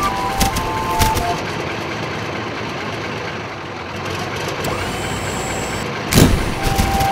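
Cartoon tank engine sound effect: a steady rumbling drone, with a few short beeping tones in the first second and a loud whoosh about six seconds in.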